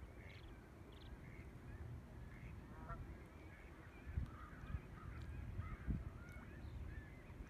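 Common Goldeneye ducklings peeping faintly, many short high calls in quick succession, over a low rumble.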